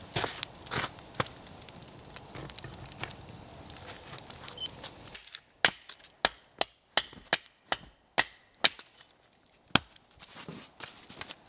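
Hatchet chopping into a log on a chopping block, splitting firewood: a quick run of about ten sharp wooden knocks, two to three a second, with one last strike a little later. Before it, a campfire crackles.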